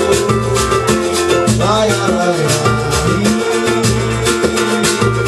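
Live samba music: percussion and plucked strings keep a steady, dense beat in an instrumental passage between sung verses.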